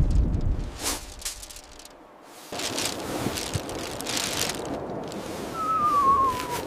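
Wind rumbling on the microphone, dying away, then a sudden switch to hissing, rustling wind. Near the end comes a thin whistle-like call that glides downward for about a second.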